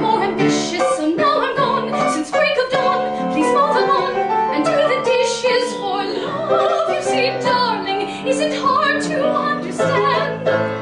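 Female soprano singing in operatic style with a wavering, ornamented line, accompanied by piano.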